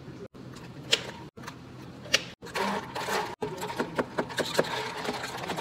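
Iced drinks being handled in clear plastic cups: quick clicking and rattling of ice and plastic as the drinks are mixed and dome lids are pressed on. The clicking is busiest in the second half and is broken by several brief dropouts.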